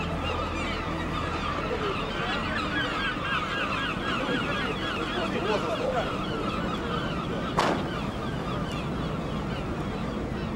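A flock of birds calling: many short, overlapping calls repeating without a break, over a low steady hum, with one sharp knock about three-quarters of the way through.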